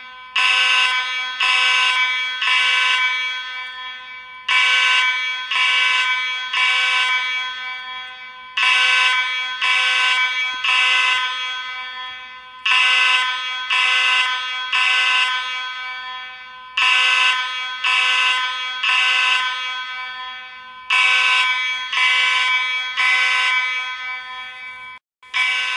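Space Age AV32 fire alarm sounding in a temporal-three evacuation pattern: three short blasts of a buzzy, many-overtoned tone, then a pause, repeating about every four seconds. Near the end the sound cuts out for an instant before the pattern resumes.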